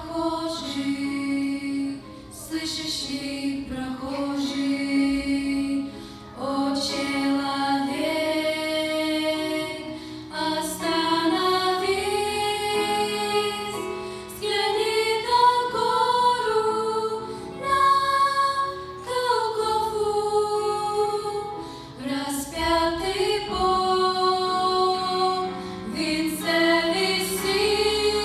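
A song sung by high voices over a steady musical accompaniment, phrase after phrase with short breaths between.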